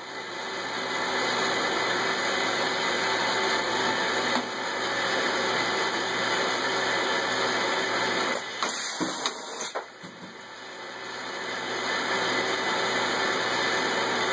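Automated laser marking machine running with a steady motor noise. The noise builds up over a couple of seconds, drops away with a few clicks just before the ten-second mark, and builds back up again.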